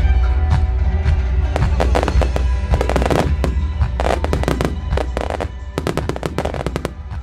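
Fireworks display: a rapid, irregular barrage of aerial shell bursts and crackling. String-led music plays alongside and fades over the first few seconds.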